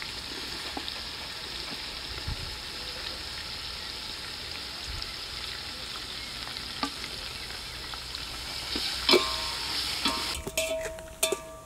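Sliced onions sizzling as they fry in hot oil in an aluminium pot, stirred with a metal slotted ladle. There are a few sharp knocks of the ladle, the loudest about nine seconds in. The sizzle cuts off abruptly near the end.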